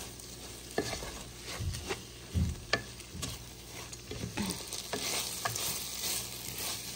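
Rice and vegetables frying in butter, sizzling while being stirred, with scattered scrapes and knocks of the stirring utensil against the pan.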